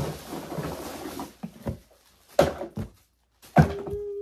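Empty toiletry bottles being handled and set down: a sharp knock, a second of rustling, then several separate thuds.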